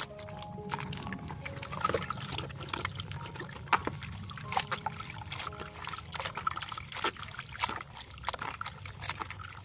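Raw octopus being squeezed and kneaded by hand in water in a plastic colander: irregular wet squelches, sloshing and splashes, with water trickling through the colander.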